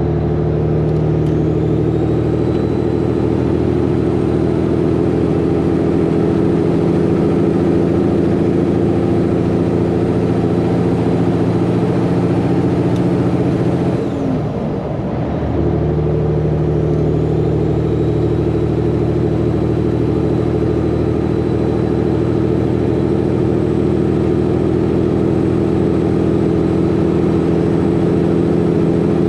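Cab interior sound of a 1984 Peterbilt cabover's Caterpillar 3406B diesel pulling steadily at highway speed. The steady engine note breaks off for about a second halfway through, then picks back up.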